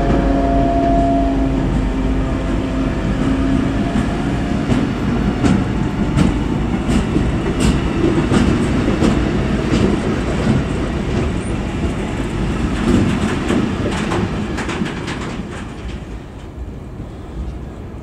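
Freight train of container flat wagons rolling past, wheels rumbling and clicking over rail joints. The hum of the Vossloh Maxima 40 CC diesel locomotive fades out in the first second or two, and the wagon noise thins out near the end.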